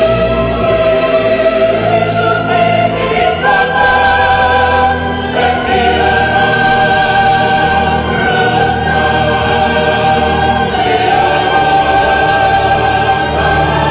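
Mixed chamber choir singing long held chords with a chamber orchestra of strings, the harmony moving to a new chord a few times.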